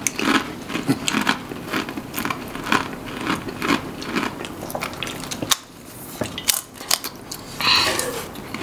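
Crunchy snack crackers being bitten and chewed, with many short, crisp crunches throughout.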